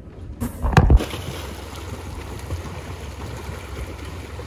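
A loud, low thump just under a second in, then steady water noise and splashing from swimmers doing laps in an outdoor pool.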